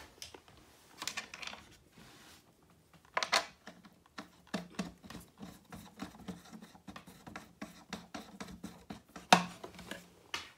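Handling noise of a wooden drafting table being assembled: a slotted wooden angle bar is worked over its bolts, with wood and metal parts scraping, clicking and knocking. Two louder knocks stand out, about three seconds in and near the end.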